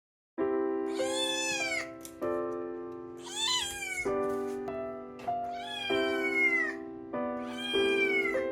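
A cat meowing four times, each meow rising then falling in pitch, over gentle background music with held chords.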